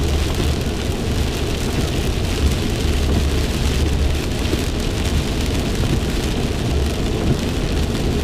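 Heavy rain beating on a car's roof and windshield, heard from inside the moving car, over the steady low rumble of the car's tyres and engine on a wet road.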